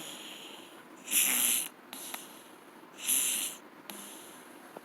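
Domestic cat snoring in its sleep: two loud, raspy snoring breaths about two seconds apart, with quieter breathing between.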